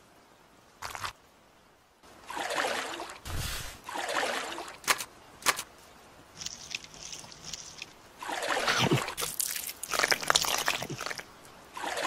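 Shallow muddy water sloshing and splashing in several short bursts, with two sharp clicks a little before the middle.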